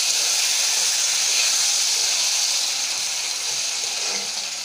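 Tomato paste masala sizzling in hot oil in a kadai while a spatula stirs it. The steady frying hiss eases slightly toward the end.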